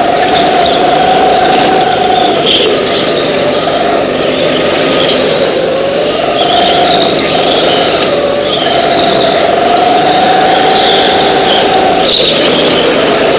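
Go-kart engine running hard at steady high revs, dipping briefly three times as the throttle eases for corners and picking back up, with a short knock near the end.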